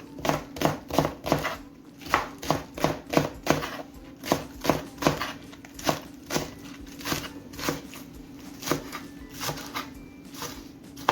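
Knife chopping green onion (scallion) on a cutting board: a steady run of sharp strokes, about two to three a second, growing fainter and more spaced out in the second half.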